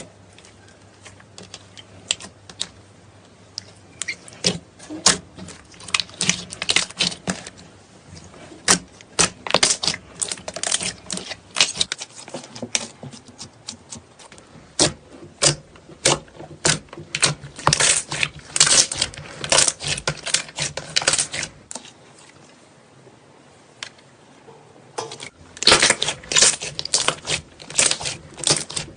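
Slime being squeezed and pressed by hand, giving off quick runs of sharp clicking pops and crackles, with a short lull near the end before the popping starts again.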